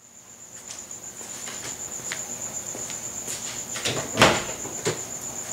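A cricket chirping in a steady high pulsing trill, with scattered light clicks and knocks and one louder thump a little past halfway.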